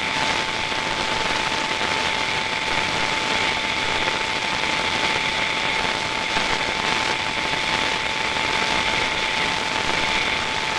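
Steady hiss of broadcast static with a continuous mid-pitched tone held over it, unchanging throughout: the dead-air signal of a mock emergency alert broadcast after its spoken message has ended.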